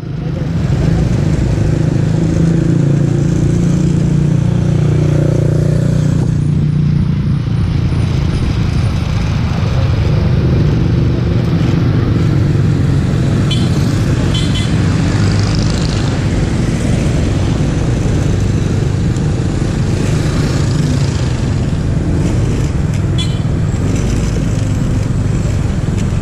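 Motor scooter riding through city traffic: its small engine running steadily under wind and road noise, with other motorcycles and traffic around. A couple of short horn beeps come from nearby traffic about halfway through and again near the end.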